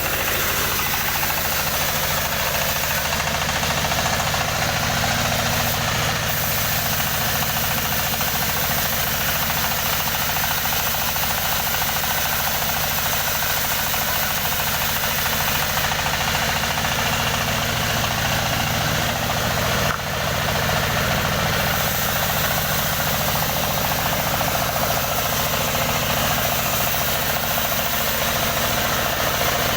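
Engine-powered wood saw running steadily, with a single brief knock about two-thirds of the way through.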